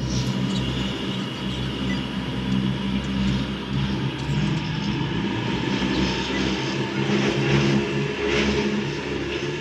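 Ferry engine running steadily with a low, even hum as the boat works against the river current.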